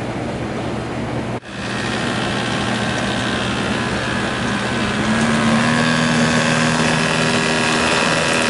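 Commercial immersion blender running in a pot of soup, puréeing it smooth: a steady motor whine that starts about a second and a half in, after a steady background hum, and gets louder about halfway through.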